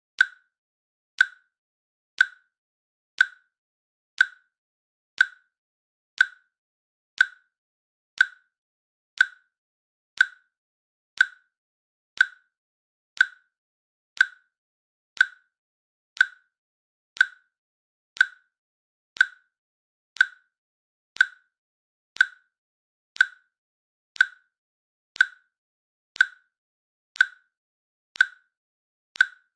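Countdown timer's click sound, one short sharp click each second, marking off the seconds.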